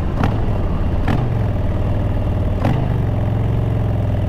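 2021 Harley-Davidson Breakout's Milwaukee-Eight 114 V-twin running under way through aftermarket pipes and intake, a steady deep note. Three sharp clicks cut through it in the first three seconds.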